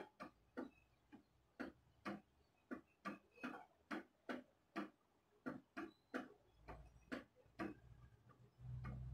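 A stirring spoon tapping and scraping against the sides of a stainless steel pot of simmering carrot kheer, in light, regular taps about two to three a second. A low steady hum comes in near the end.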